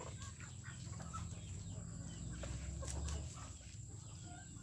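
Chickens clucking in short calls, with scattered light ticks of birds pecking at the ground.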